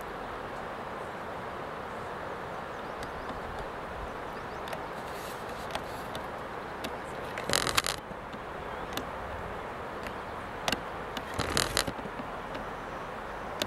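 Steady outdoor rushing noise, with two short clusters of sharp clicks close to the microphone, one about halfway through and one near the end.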